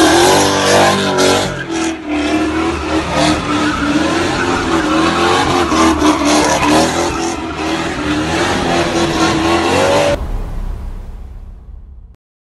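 Car tyres squealing continuously, a wavering high tone over loud car engine and tyre noise, as in drifting or a burnout. It cuts off abruptly about ten seconds in and gives way to a low rumble that fades out.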